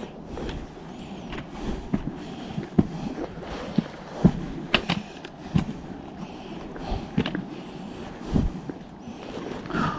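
Footsteps on a mountain hiking trail: an irregular series of scuffs and knocks, about one or two a second.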